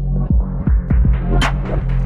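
Background music: an electronic beat with a heavy sustained bass line, repeated deep kick-drum thumps and a few sharp hissy percussion hits.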